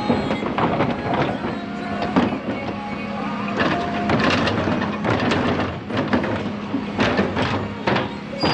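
A wheelie bin lifted, tipped and lowered by a refuse truck's Terberg OmniDEKA electric bin lift, with repeated knocks and clatters as the bin bangs on the lift and paper and cardboard drop into the hopper, over a steady low hum.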